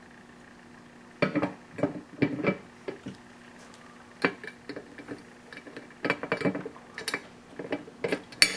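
Metal parts of an Ad-Lee E-Z gumball machine clinking and knocking as the machine is reassembled and its top and lock are put back on. The irregular clicks and knocks start about a second in, some with a short metallic ring, and the sharpest comes near the end.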